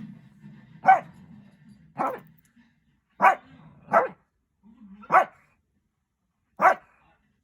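A Shih Tzu barking at its puppy: six single short barks at uneven intervals, with a low rumble between the first few.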